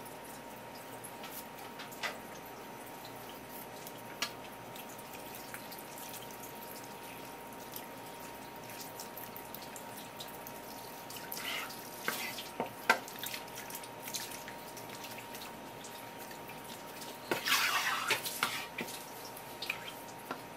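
Thin stream of tap water from a sink sprayer running and dripping onto a wet wooden cutting board while a spear squid mantle is rinsed and handled. A few sharp clicks sound throughout, and a short burst of wet squishing and slapping about 17 seconds in is the loudest part.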